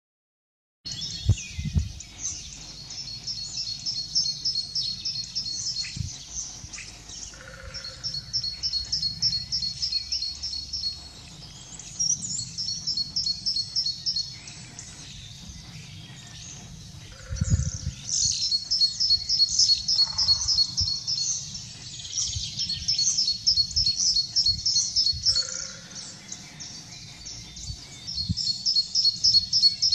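Common starling singing: long runs of rapid, rattling, clicking high notes broken by short pauses, with a few lower notes mixed in. The song starts about a second in.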